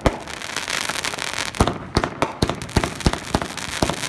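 Fireworks going off: a crackling hiss of burning stars for the first second and a half, then a quick string of sharp bangs and pops.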